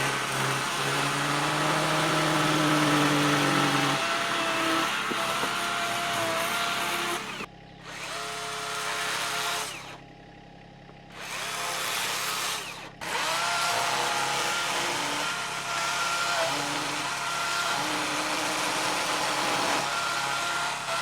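Stihl two-stroke chainsaw running at high revs, cutting through logs for firewood. It drops back toward idle twice around the middle, then revs up again.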